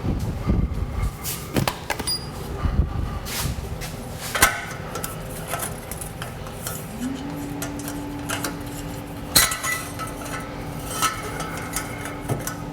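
Metal tools and steel suspension parts clinking and knocking at irregular intervals during vehicle suspension work. A steady low hum starts about halfway through and keeps on.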